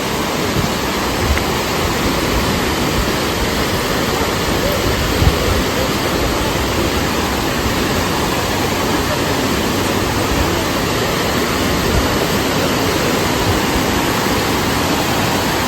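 Water rushing over a small waterfall on a swollen stream: a loud, steady, even roar of falling water.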